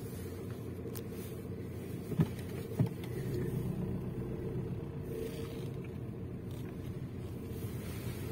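Car engine and tyre rumble heard from inside the cabin while driving slowly, steady throughout, with two short clicks a little over two seconds in.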